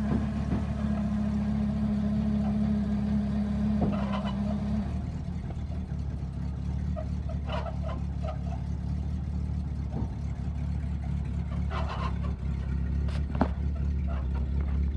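1979 International 1924 dump truck's engine idling steadily. A steady hum from the dump hoist runs while the raised bed comes down, then stops about five seconds in. A few light knocks follow.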